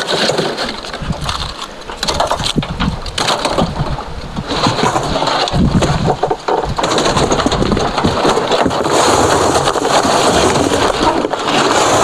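Lump charcoal and partly charred wood clattering and scraping against a steel drum as the kiln is unloaded. The knocks are irregular in the first half and become a denser, steadier rattle and rush in the second half.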